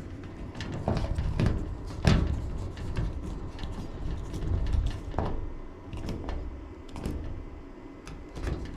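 Scattered clicks, knocks and rustling of hands working on electrical wiring and switch parts, joining wires together.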